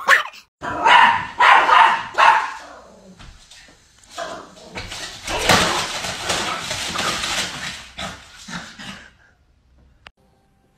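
A dog barking: three or four loud, short barks in quick succession about a second in, followed by a few seconds of rough, hissy noise.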